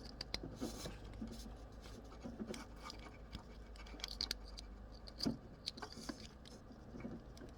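Faint rustling and small clicks of a plastic multi-pin wiring connector and its wires being handled and pushed into its socket, with one louder click about five seconds in.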